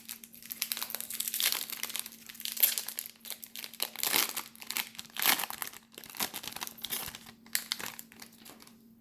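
Foil wrapper of a baseball card pack crinkling and tearing as it is opened and handled, in irregular bursts of crackle that stop near the end.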